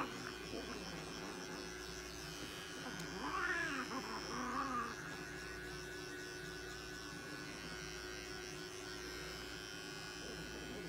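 A cat yowls once, drawn out and rising then falling in pitch, about three seconds in, then gives a shorter cry right after, while restrained for trimming of its matted coat. A small electric clipper hums steadily in the background.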